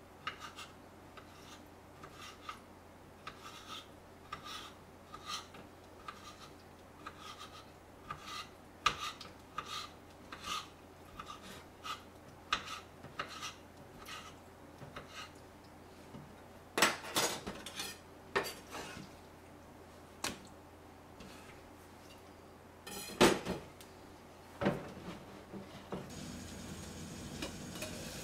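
Light, evenly paced clicks, about three every two seconds, of a utensil working food on a small wooden cutting board, followed by a few louder clatters of metal utensils and dishes. Near the end a steady hiss begins: water heating in a stainless steel pot.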